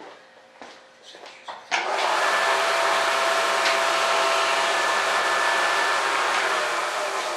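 A small electric motor-driven tool or blower switches on abruptly, runs steadily with a whine over a rushing noise, then begins to wind down near the end.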